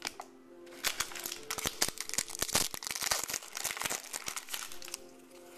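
Foil trading-card pack wrapper being torn open and crinkled by hand: a dense crackle that starts about a second in and dies away near the end.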